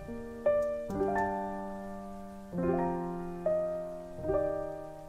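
Background piano music: single notes and chords struck roughly once a second, each left to ring and fade.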